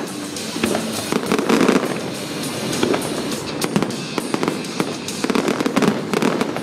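Aerial fireworks display: repeated bangs of bursting shells and rapid crackling, thickest around the middle and again near the end.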